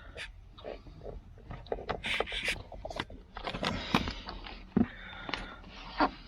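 Hands working a car seat's wiring harness and plastic connectors: a run of irregular small clicks, scrapes and rustles, with two sharper knocks in the second half.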